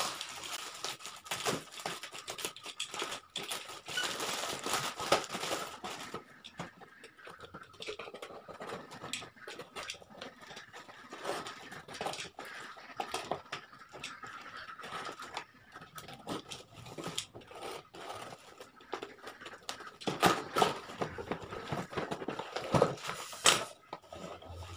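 Parcel packaging being opened by hand: plastic wrapping torn and crinkled, a cardboard box scraped and its flaps pulled open, with irregular clicks and rustles that grow louder and busier near the end.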